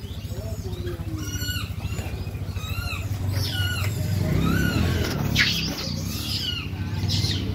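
Rhesus macaques in a feeding crowd giving a string of short, high-pitched squealing calls, roughly two a second and thicker toward the end, over a steady low hum.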